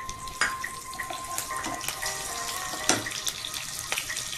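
Green chillies sizzling in hot oil with cumin in a kadhai, the tempering crackling, with a few sharp pops, the loudest about three seconds in.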